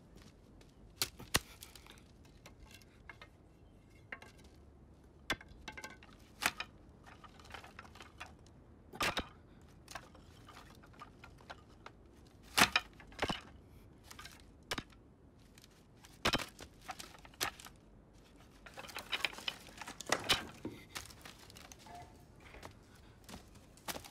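Scattered knocks and clatter of firewood and wooden kitchen objects being handled and set down, with a stretch of rustling about two-thirds of the way through.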